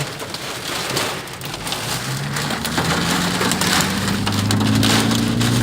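Heavy rain drumming on a car, heard from inside, with many sharp hits among the drops. About halfway through, a steady engine hum comes in and slowly rises in pitch as the car picks up speed.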